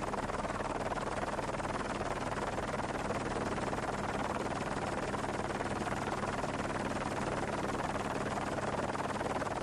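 Steady drone of a helicopter's engine and rotors: an even rushing noise over a low, constant hum, with no change in pitch or level.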